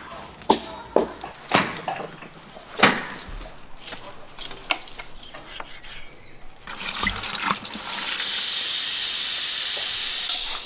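Afghan cauldron (pressure pot) venting steam through its lid valve: a loud steady hiss that builds from about seven seconds in and cuts off abruptly near the end. Before it, a handful of sharp knocks and clicks.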